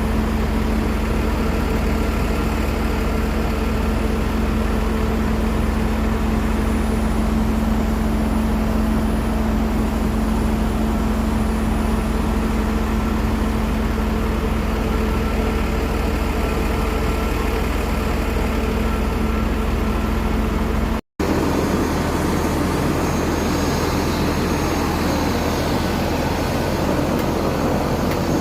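Aircraft turbine engines running steadily on the ground, a constant drone with a few held tones. It breaks off for a moment about 21 seconds in, then carries on with a slightly different, hissier tone.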